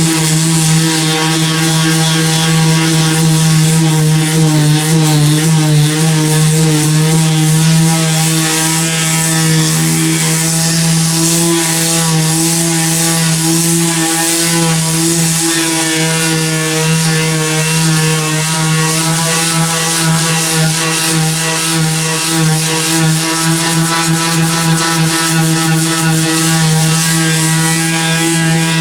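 Electric power sander running steadily, its motor humming with a bright abrasive hiss as the sandpaper grinds old baked-on paint off a car body.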